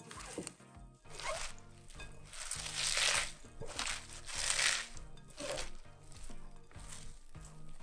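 Hands tossing and squeezing shredded cabbage salad in a glass bowl: crisp rustling and crunching in several bursts. Background music plays under it.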